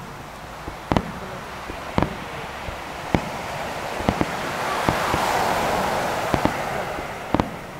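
Aerial firework shells bursting in a star mine display: sharp booms about once a second. A hiss swells and fades through the middle.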